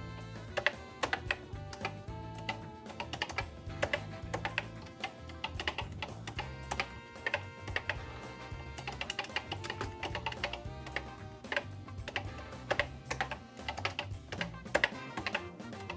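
Keystrokes on the Commodore SuperPET's keyboard, clicking in irregular bursts as a short Pascal program is typed in, over background music.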